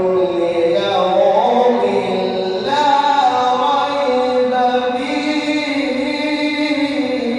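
A man reciting the Quran in Arabic, in melodic tajweed chant: long drawn-out notes with ornamented pitch bends and short breaks between phrases.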